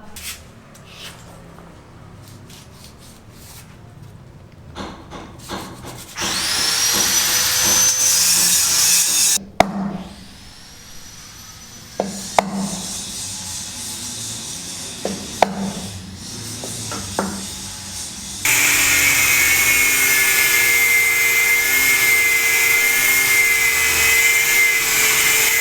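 Construction power tools at work. After a few scattered clicks, a tool spins up with a rising whine and runs for about three seconds, then comes a spell of sharp knocks. For the last seven seconds a saw or grinder runs steadily with a high whine.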